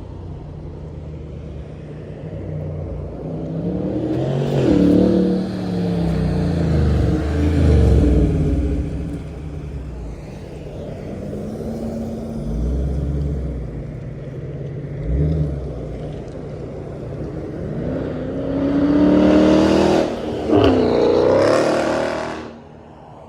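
Cars driving past with engines revving, twice: one pass builds a few seconds in and another near the end, each swelling and then falling away as the pitch bends.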